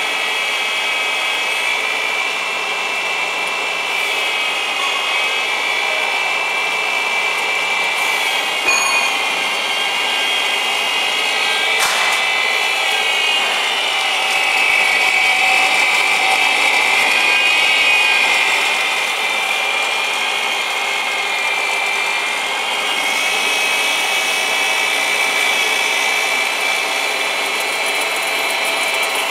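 Small sesame paste grinder, a colloid mill driven by an electric motor, running steadily with a high whine as it grinds sesame into paste. Two brief clicks, about nine and twelve seconds in.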